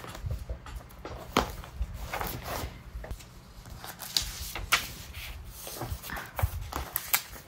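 Paper cut-outs and journal pages being handled on a craft table: scattered rustles with a few light taps and clicks.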